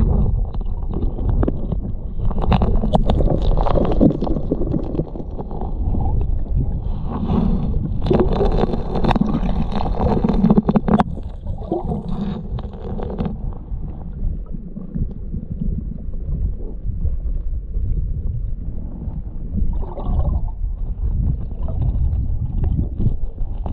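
Muffled rush of river current heard underwater through a camera housing, with gritty scraping and clicks of a gloved hand digging through riverbed gravel and stones, stronger in two spells in the first half.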